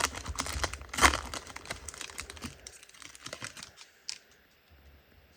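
A trading-card pack wrapper being torn open and crinkled, loudest about a second in, then fading to faint rustles and a single click.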